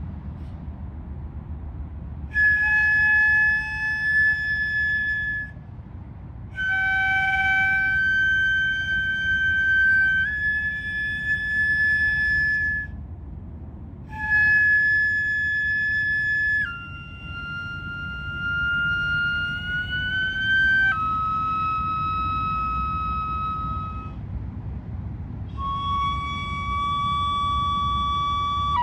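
Ryūteki, the Japanese gagaku bamboo transverse flute, played solo: long held high notes broken by short breath pauses, several sliding upward in pitch near their ends. A steady low rumble runs beneath.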